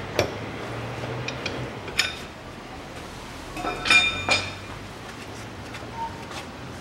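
Metal clinks of a steel hub-nut socket and wrench on a Land Rover Defender's rear hub as the hub nut is being undone: a sharp clink near the start, another about two seconds in, and a louder cluster of ringing clinks around four seconds in.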